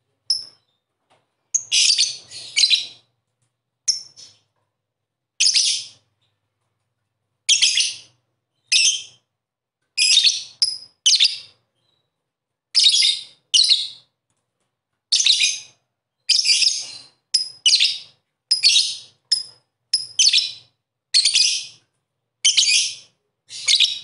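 Lovebird giving a string of short, shrill chirping calls, often two or three in quick succession, with silent gaps between them.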